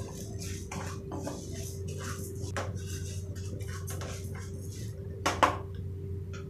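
Wooden spatula stirring dry-roasted urad dal in a steel kadai: a run of short scraping strokes with the grains rattling against the metal. About five seconds in there is a single sharp clank, the loudest sound. A steady low hum runs underneath.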